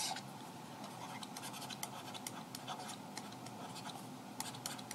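Faint scratching and light ticks of a stylus drawing lines and handwriting on a digital pen tablet.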